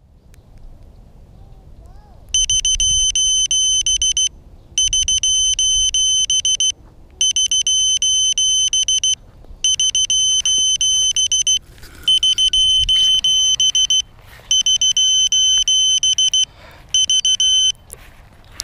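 Piezo lost-model beeper on a downed FPV quadcopter sounding: high-pitched beeps in rapid bursts of about two seconds, seven bursts with short pauses between them. It marks the crashed quad's position so it can be found in the grass.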